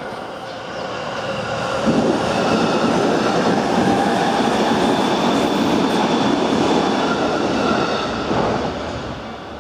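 Nambu Line electric commuter train passing over a level crossing: the rumble builds over the first two seconds, stays loud for about six seconds, then fades away near the end.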